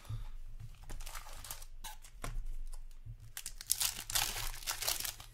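Foil wrapper of a Skybox Metal Universe hockey card pack being torn open and crinkled in the hands, a run of irregular crackling that is loudest near the end.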